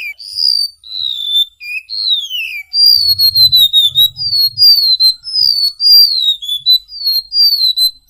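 Golden-bellied gerygone (remetuk laut) singing: high, thin whistles that slide downward, then from about three seconds in a quick run of short slurred whistles, two or three a second.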